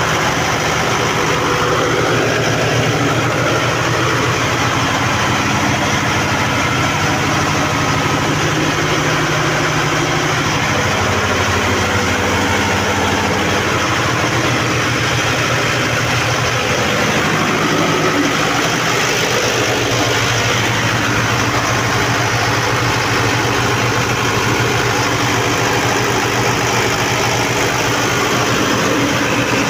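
Large diesel generator set's engine running steadily at a constant speed, loud in the enclosed generator room.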